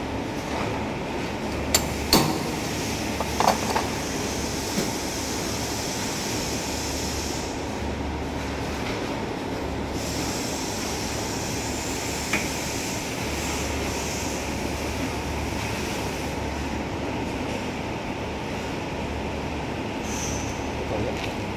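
Steady workshop machinery noise with a pulsing low hum and an on-off hiss. A few sharp metal clinks sound in the first few seconds and once more midway, as parts on a can seamer's seaming head are handled.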